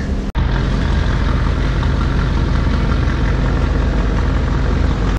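Boat engine running steadily with a low hum. It starts after a brief break about a third of a second in.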